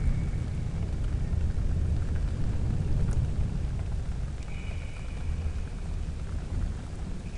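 Thunderstorm recording: a low roll of thunder, loudest at first and slowly easing, over steady rain. A faint, high, drawn-out tone starts about four and a half seconds in.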